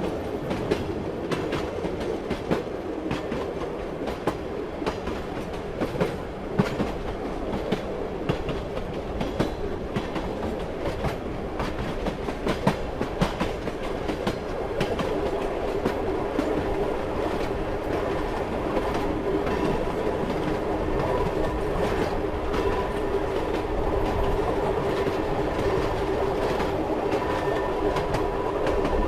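Train running on the rails: a steady rumble, wheels clacking irregularly over rail joints, and a steady hum that grows slightly louder about halfway through.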